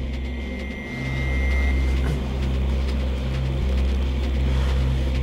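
A steady low droning rumble, with a faint thin high tone over it for the first second and a half.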